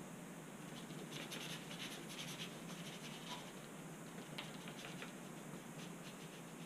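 Paintbrush scrubbing acrylic paint onto the surface of a painting: a run of faint, short scratchy strokes from about a second in until about five seconds in.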